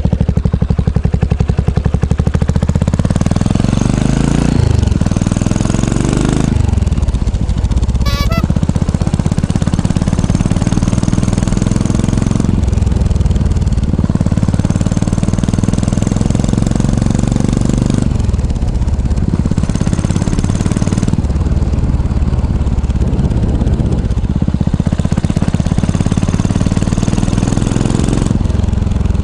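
Yamaha SR400's single-cylinder four-stroke engine heard through an aftermarket exhaust muffler, revving up and falling back several times, its pitch climbing and then dropping every few seconds.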